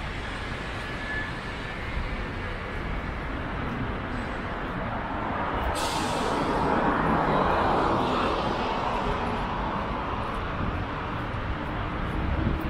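City street traffic: a steady rumble of passing vehicles, swelling as a vehicle goes by in the middle, with a short hiss about six seconds in.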